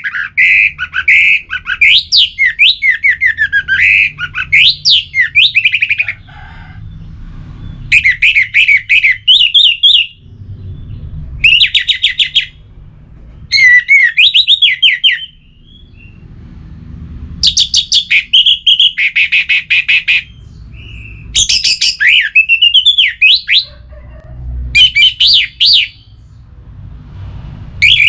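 Orange-headed thrush singing: loud phrases of quick, varied whistled notes sweeping up and down, each a second or two long, with short pauses between them.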